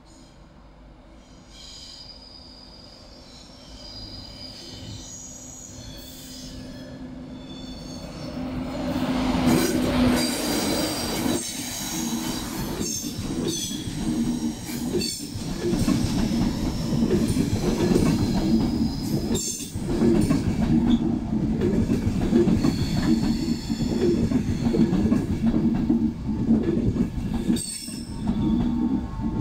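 LNER InterCity 225 train (Class 91 electric locomotive with Mk4 coaches) arriving and running along the platform while braking, its wheels and brakes squealing, with a few sharp clunks as wheels pass over rail joints. It grows louder over the first ten seconds as it draws near, then stays loud as the coaches roll past.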